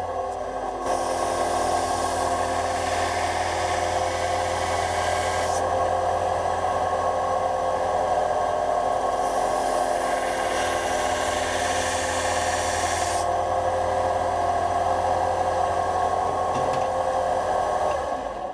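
Electric belt-and-disc sander running with a steady hum while a rusty steel knife blade is ground on its sanding belt in two passes, each a hiss of about four seconds. The motor is switched off and runs down near the end.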